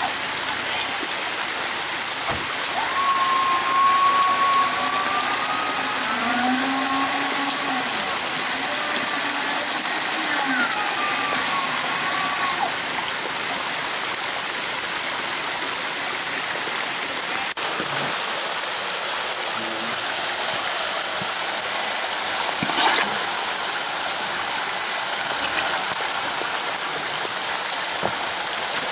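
Creek water running over rocks in the rain, with a mechanical whine that bends up and down in pitch for about ten seconds, starting a few seconds in.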